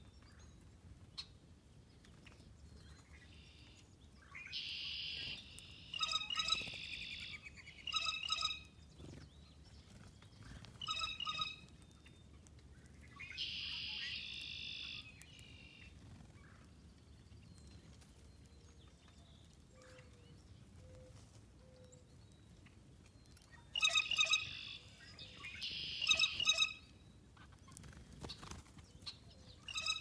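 Songbirds singing in short bouts several seconds apart: steady trills about a second and a half long and quick runs of repeated high notes, over a faint low outdoor rumble.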